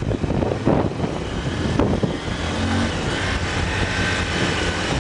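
A vehicle engine running, with a steady low hum under noisy rushing, and a few knocks in the first two seconds.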